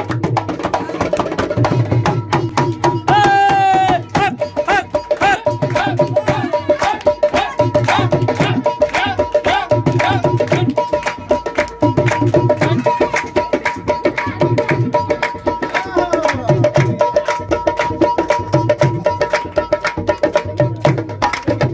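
Dholak played in a fast, driving rhythm: quick sharp strokes on the treble head over deep strokes on the bass head, running without a break.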